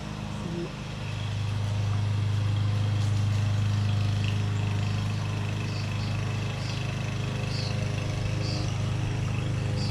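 Gasoline lawn mower engine running steadily under load, getting louder about a second in.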